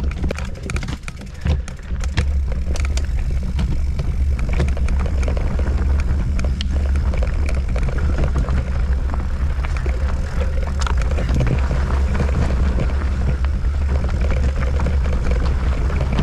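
Mountain bike riding down a rough, rocky trail: tyres crunching and the bike rattling over rocks and roots in many quick knocks, over a steady heavy rumble of wind on the helmet-camera microphone.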